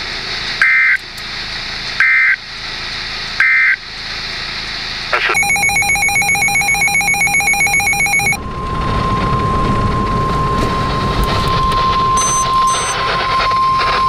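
NOAA Weather Radio alert tones from a Midland weather radio's speaker. Three short data bursts, the end-of-message code closing the warning, are followed by a buzzing, rapidly pulsing alert for about three seconds. A steady 1050 Hz warning alarm tone then starts and holds.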